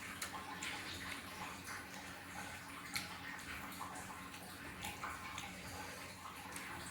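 Person eating fried fish: chewing with scattered small wet clicks and smacks, one sharper click about three seconds in.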